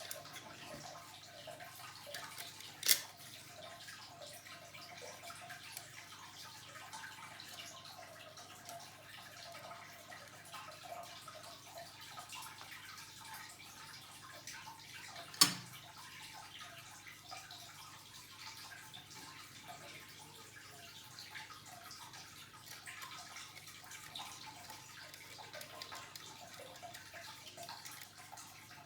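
Faint, scattered small clicks and taps from handling small parts during laptop work, with two sharp clicks about 3 seconds and 15 seconds in.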